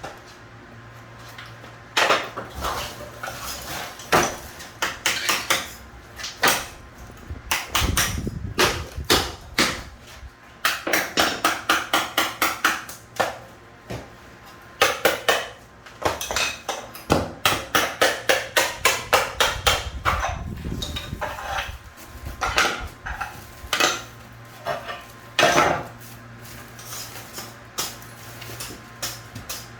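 Hammer blows on a metal chisel chipping out ceramic tile, with clinks of broken pieces. Irregular strikes come in runs of rapid, even blows, about four a second, twice in the middle.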